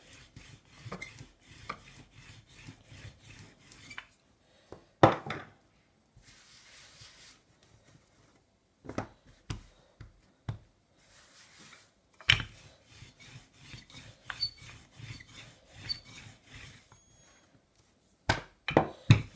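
Rolling pin rolling out chilled pastry dough: rubbing strokes with many light clicks, and a few sharper knocks, about five seconds in, about twelve seconds in and near the end.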